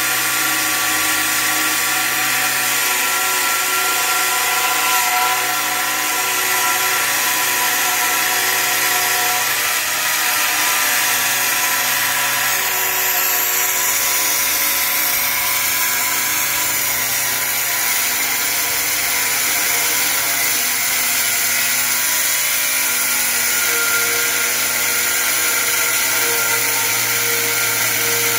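Angle grinder cutting through a 2 cm thick porcelain stoneware (gres) tile, running steadily in one long continuous cut with its pitch wavering slightly under load.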